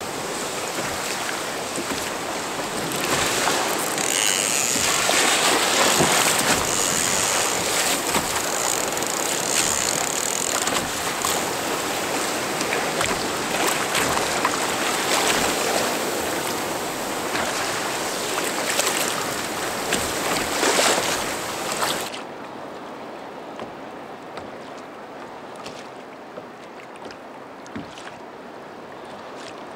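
Choppy sea water rushing and splashing against a kayak, loud and steady. About two-thirds of the way through it cuts suddenly to quieter water lapping around the hull.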